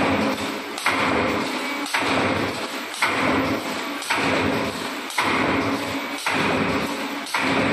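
CNC wire forming machine making paint-roller frame cage wires, running in a steady automatic cycle: a sharp click about once a second, each followed by a noisy stretch as the wire is fed and bent.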